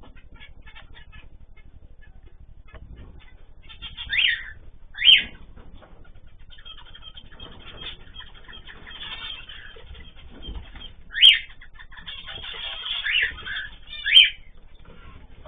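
Ornamental cage birds chirping and calling, with a steady background of soft chatter and about four loud, sharp calls that sweep down in pitch.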